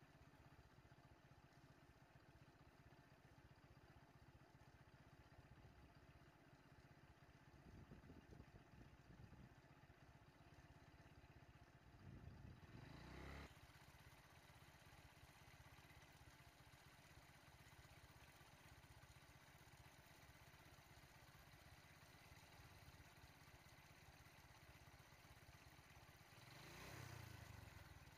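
Near silence with a faint engine hum, which swells near the end as a three-wheeled auto-rickshaw's small engine draws near.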